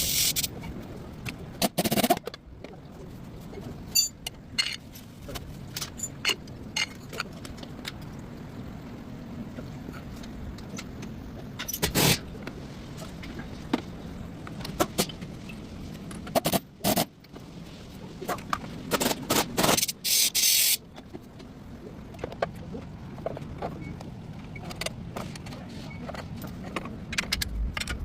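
Metal tools and parts clinking, knocking and scraping during work on a car's shock absorber mounting, with a few louder noisy bursts up to about a second long over a steady low background hum.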